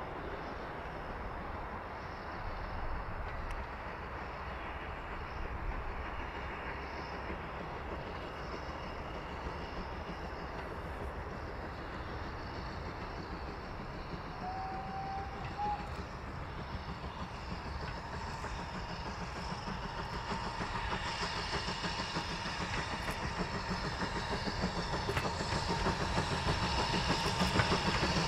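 Ivatt Class 2MT 2-6-0 steam locomotive working a goods train towards the listener, with a steady rumble and exhaust beats. It grows steadily louder, and the rhythmic chuffing becomes clear in the last third.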